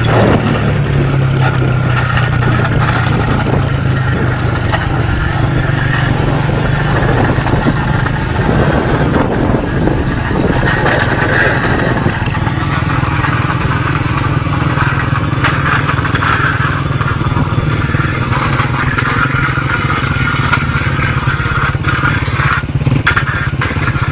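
Small motorcycle engine running steadily at a held throttle while the bike is kept up on its rear wheel in a wheelie.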